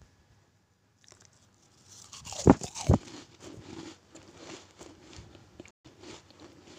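A crisp sago-cheese butter cookie being broken and crumbled between fingers, crackling and crunching, with two heavier knocks in the middle.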